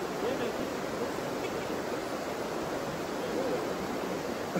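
Steady rush of falling water from a waterfall and river cascades.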